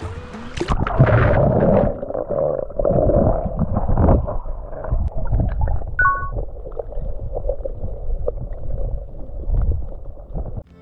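Water heard through a camera held underwater while snorkeling: muffled gurgling, bubbling and rumbling from water moving past the housing and the swimmer's movements. For about the first two seconds, as the camera goes below the surface, it is splashier and brighter; after that it is dull.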